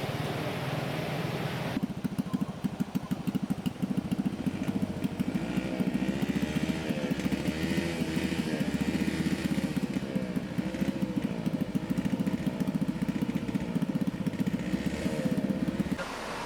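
A small engine running, its pitch rising and falling, starting about two seconds in and cutting off suddenly near the end, over a steady rushing noise.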